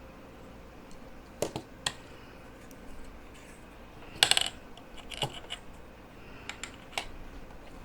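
Scattered light clicks and metallic taps of small tools being handled and set down on a workbench while soldering, with a louder short rattle about four seconds in.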